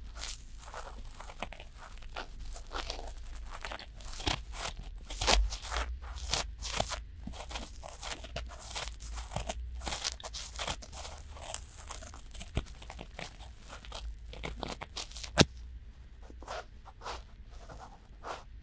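Cotton swabs rubbing and scraping inside both silicone ears of a binaural microphone at once, a dense, irregular run of short strokes. One sharper, louder click comes about fifteen seconds in.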